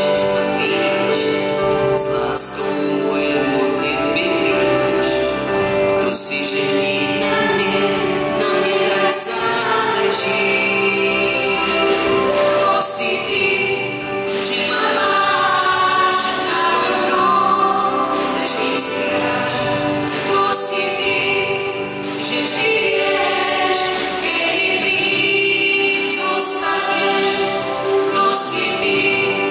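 A man and a woman sing a song as a duet through microphones, backed by a choir. The man sings alone at first, and the woman joins in partway through.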